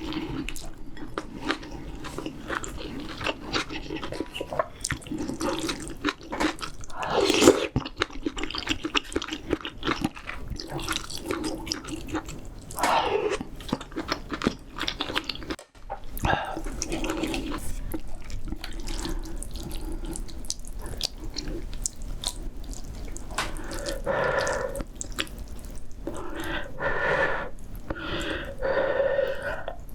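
Close-miked eating sounds of spicy seafood ramyeon: wet chewing, lip smacks and slurping of noodles and broth, with a few longer, louder slurps.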